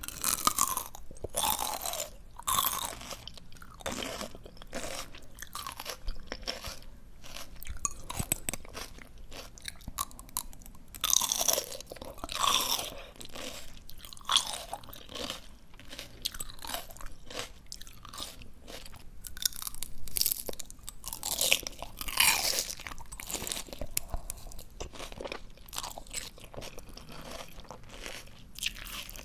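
Close-miked chewing of crisp, juicy raw greens: wet crunches come in irregular bouts, with louder bites about eleven seconds in and again around twenty seconds in.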